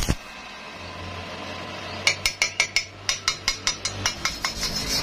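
A brief burst from the stick-welding arc right at the start as a spot weld is struck on thin steel square tube. About two seconds in, a steel bar starts rapidly tapping the fresh weld on the tube, about six sharp metallic taps a second, growing fainter.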